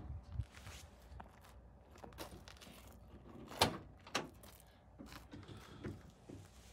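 A few faint, scattered clicks and knocks over a quiet background, the two loudest close together a little past halfway.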